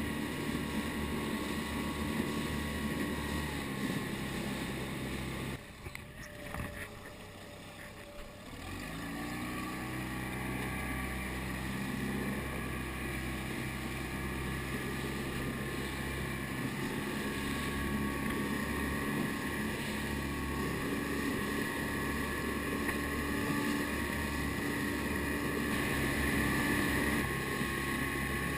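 Outboard motor of a small inflatable boat running at speed, with wind and rushing water over it. About six seconds in the sound drops away for a couple of seconds, then the engine comes back with a rising pitch and runs steadily on.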